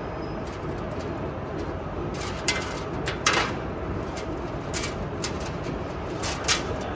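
Coiled wire mesh spiral-forming machine running with a steady mechanical noise. Sharp metallic clicks and rattles come several times, loudest a little after three seconds in, as the formed wire spiral is handled on the sheet-metal table.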